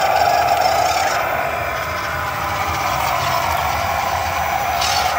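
Electric drive motor and gearbox of a WPL C44KM radio-controlled crawler truck whining steadily, wavering slightly in pitch as it crawls up and over a rock ledge.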